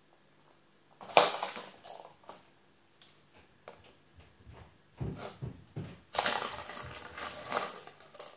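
Plastic balls knocking and rattling around a circular ball-track cat toy as kittens bat at it: a sharp knock about a second in, a few dull thuds, then a longer clatter in the second half.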